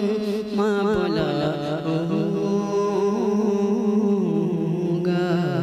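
A male singer holds long, wavering notes in a devotional kalam, sliding down from note to note over a steady sustained accompaniment. There are a few soft low drum taps about a second in.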